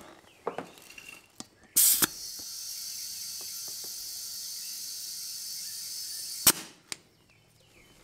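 Compressed air hissing steadily from an air chuck into a lawn mower tire for about four and a half seconds as it is inflated from about 16 to 20 psi. It begins with a sharp burst as the chuck is pressed onto the valve stem and ends with a sharp click as it comes off.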